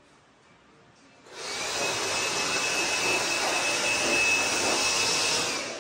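Handheld blower switched on about a second in and run steadily, a loud rushing air noise with a thin high whine, blowing off a freshly planed timber; it shuts off and winds down just before the end.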